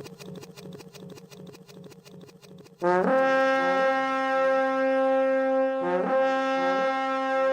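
A DJ horn sound effect: a loud, brassy horn blast that scoops up in pitch and holds, sounded about three seconds in and again about three seconds later. Before it a fading, rhythmically pulsing effect dies away.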